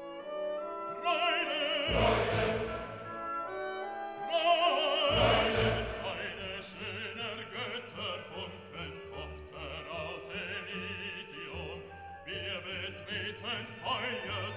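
Operatic singing with a wide vibrato over classical orchestral accompaniment, with heavy low notes about two and five seconds in.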